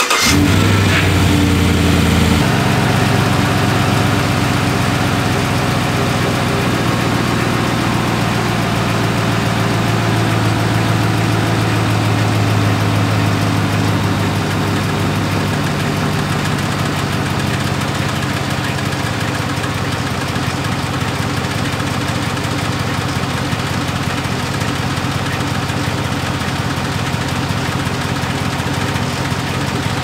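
Chevrolet Silverado 5.3L V8 just after a cold start, at fast idle for the first couple of seconds and then settling into a steady idle. The ticking on cold starts, loudest at the driver-side front fender well, is what the owner traced to a failing brake vacuum pump.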